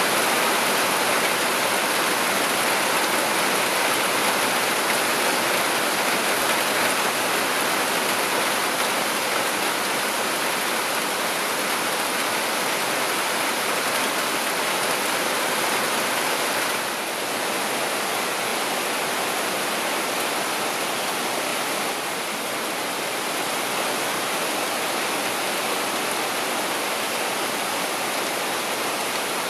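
Heavy rain pouring on dense forest foliage, a steady, even hiss that eases slightly about 17 seconds in and again a few seconds later.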